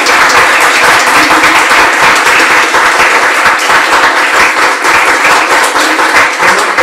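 Audience applauding loudly, a dense run of many hands clapping.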